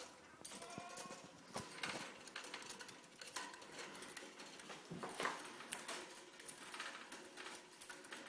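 Pet male budgie chattering quietly: a run of soft sharp clicks with a few short chirps about a second in.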